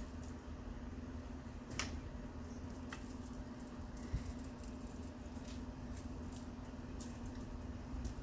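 Cats leaping at and batting a toy bird: scattered soft taps and rustles, faint, over a steady low hum.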